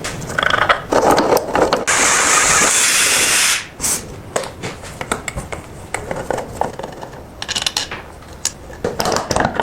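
Hand work on a rusty metal tool: clicks and knocks, then a steady spray hiss lasting about two seconds, followed by irregular metal clattering and scraping.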